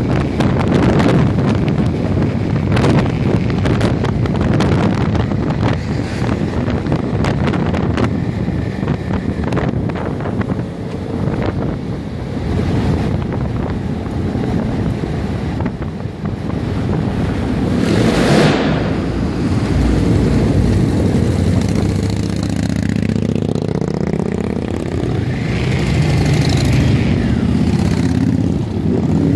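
Wind buffeting the microphone on a moving motorcycle at highway speed, mixed with the motorcycle's engine and passing traffic. From about two-thirds of the way in the engine note comes through more clearly, rising and falling in pitch.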